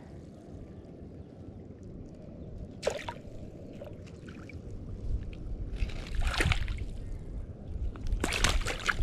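Seawater splashing and dripping as a fishing net and its line are hauled in by hand through the shallows, in short splashes about three seconds in, near six seconds and near the end, over a steady low rumble of water and wind on the microphone.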